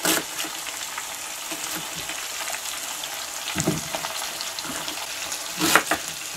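Pike liver and perch roe frying in oil in a pan: a steady sizzle, with a few sharp taps as an onion is sliced with a knife on a cutting board.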